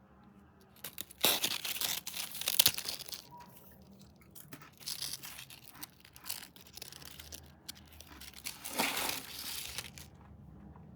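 Snack packaging crinkled and torn by hand in three loud bursts, with softer crackling between them.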